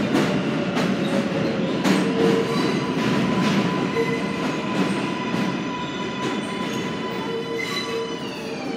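R143 subway train pulling into an elevated station and slowing to a stop: wheels rumbling and knocking over rail joints, with steady wheel squeal tones. Near the end a whine falls in pitch as the train slows.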